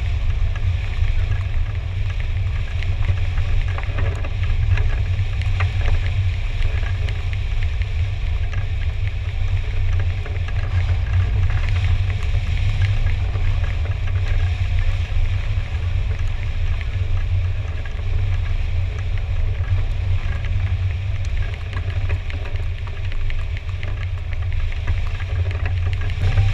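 Wind noise from the airflow of a hang glider in flight buffeting a wing-mounted camera's microphone: a steady low rumble.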